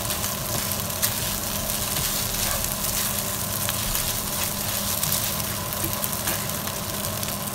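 Fried rice with egg sizzling in a non-stick frying pan as a spatula stirs and tosses it: a steady frying hiss with a few light taps of the spatula against the pan.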